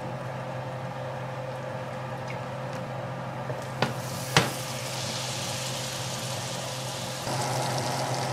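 Butter and avocado oil sizzling and foaming in a hot cast-iron skillet, over a steady low hum. The sizzle grows louder about five seconds in. Two sharp clicks come about four seconds in, half a second apart.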